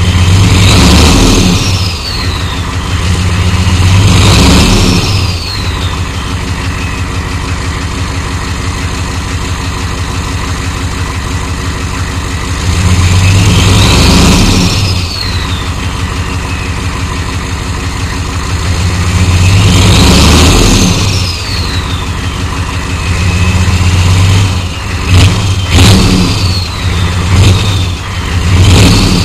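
1993 Chevrolet 6.5L turbo diesel V8 idling with a steady clatter, revved up four times, with a high whistle falling in pitch as it drops back after each rev. Near the end it is blipped several times in quick succession.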